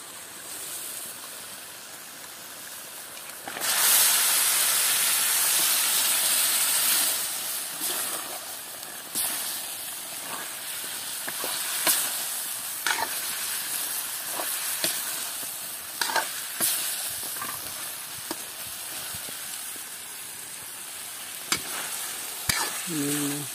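Raw chicken pieces going into hot masala in an iron kadai: a sudden loud sizzle about three and a half seconds in that slowly dies down, with a metal ladle scraping and clinking against the pan as the meat is stirred.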